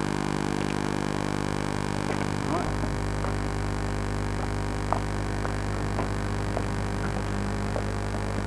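Steady electrical mains hum in several tones. It gets stronger at an edit a little under three seconds in, with a few faint short ticks over it.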